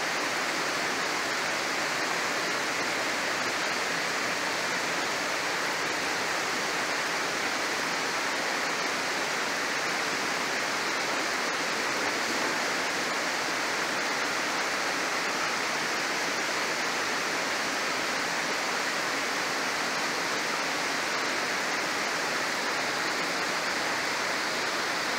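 Steady, even rush of a mountain stream running through a rocky gorge.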